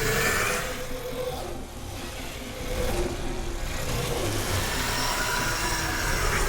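Designed Time Wraith sound effect: a dense, rumbling noise with faint wavering tones running through it, fairly steady throughout.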